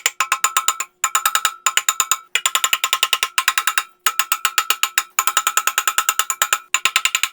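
Rapid metallic hammering in repeated bursts of about a second, several sharp blows a second with a ringing tone: a power impact wrench working on a stuck alternator pulley nut.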